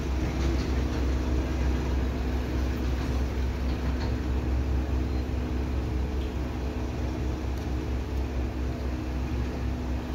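Steady low rumble and hum of background noise, with a few faint steady tones above it and nothing changing throughout.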